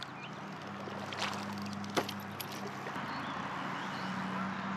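Shallow river current flowing steadily, with a low steady hum underneath and a couple of sharp ticks about one and two seconds in.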